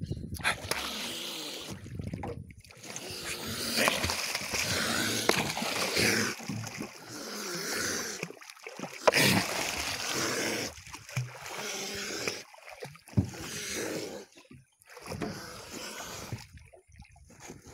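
Water splashing and sloshing close beside a small boat as a puma swims alongside it, in uneven rushing stretches with a sharp splash about nine seconds in.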